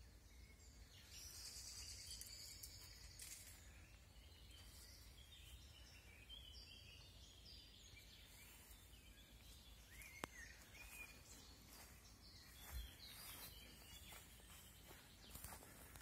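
Near-silent outdoor ambience: faint birds chirping and calling in the surrounding trees, over a low steady rumble.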